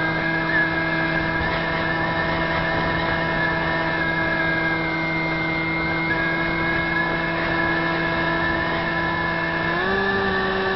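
Electric brushless motor and propeller of a Zeta Wing Wing Z-84 flying wing droning at a steady pitch with wind rush, heard from a camera on board the model. Near the end the pitch steps up as the throttle is opened.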